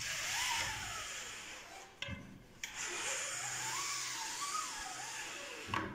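Pleated fabric blind slid by hand along its guide cords: a hissing, rubbing slide in two strokes, the first about two seconds long and the second, after a short pause, about three seconds long, with a thin wavering squeak running through both.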